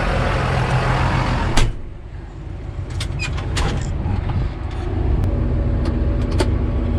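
Engine running steadily. A door slams shut about one and a half seconds in, and the engine sounds duller after that, as if heard from inside a closed cab. A few light clicks follow.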